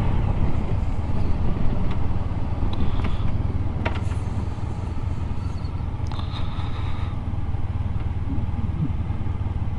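Motorcycle engine running steadily at low revs while the bike slows and changes down through the gears, with road noise. A single sharp click about four seconds in.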